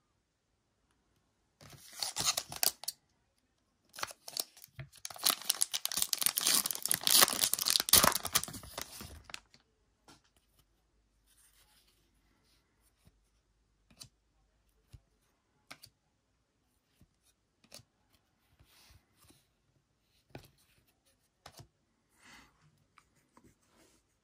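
Foil trading-card pack wrapper being torn open and crinkled, briefly about two seconds in and then for about five seconds. After that, soft scattered taps and slides of cards being handled.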